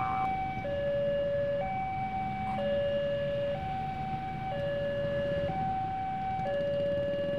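Railway level-crossing warning siren sounding a steady two-tone high–low alternation, each tone lasting about a second, signalling that a train is approaching and the barrier is closing.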